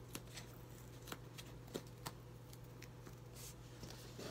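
Faint scrapes and light clicks of hands working the lid off a cardboard cylinder tube, over a steady low hum.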